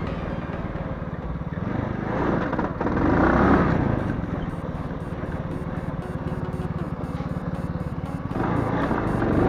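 Moped engine running steadily, getting louder twice: about two to four seconds in and again near the end.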